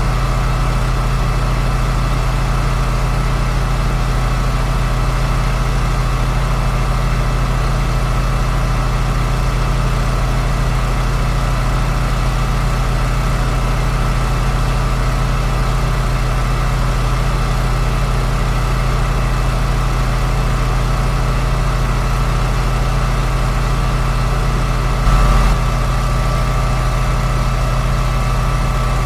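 Steady drone of a 2005 John Deere sprayer's engine running at a constant speed while spraying, with a short louder bump about 25 seconds in.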